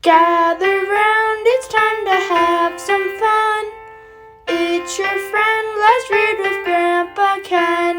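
Intro music: a sung melody over keyboard accompaniment, in two phrases with a short break about four seconds in.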